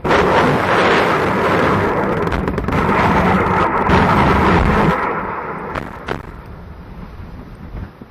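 M134 minigun firing one continuous burst that starts abruptly and lasts about five seconds, then dies away, with two sharp cracks about six seconds in.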